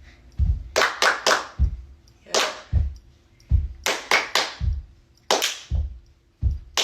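Foot stomps and hand claps of a stomp-and-clap cheer routine: deep floor thumps alternating with sharp claps in a steady rhythm, roughly two or three hits a second.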